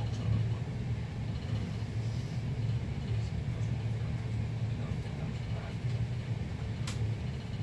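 Steady low rumble of a passenger train running, heard from inside the carriage, with a single sharp click near the end.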